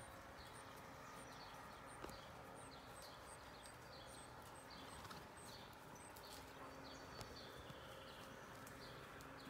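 Near silence: faint outdoor ambience with a soft, high chirp repeating about once or twice a second and a few faint clicks.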